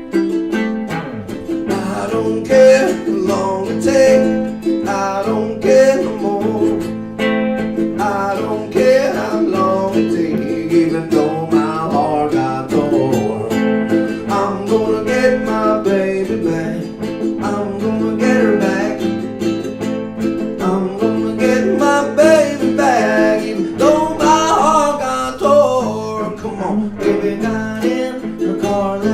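Live acoustic music: a strummed acoustic string instrument, guitar or ukulele, with a man singing over it.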